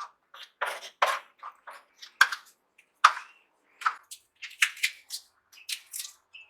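Kitchen knife cutting juicy tomatoes on a chopping board: a run of irregular sharp knocks and soft squishy cuts, about two or three a second.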